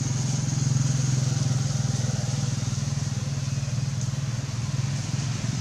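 A small engine running steadily, a low drone with a fast, even pulse.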